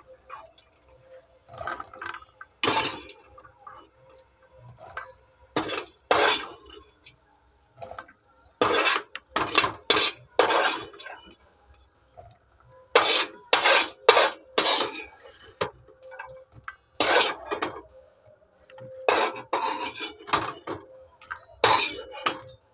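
Metal spoon scraping and clinking against a pan and a stainless steel bowl in irregular strokes with short pauses, as freshly fried peanuts are scooped into the bowl.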